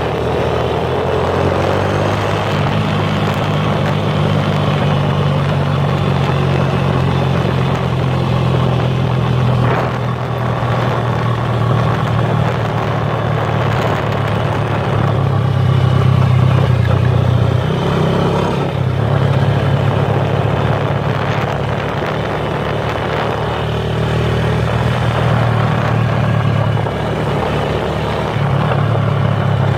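Motorcycle engine running as the bike rides along, a steady low drone whose pitch shifts a few times with the throttle, over wind and road noise.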